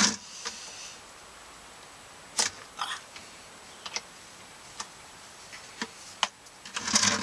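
Scattered sharp clicks, roughly one a second, from a ratchet turning a 19 mm socket to loosen a truck's oil drain plug, with a louder rustling stretch near the end.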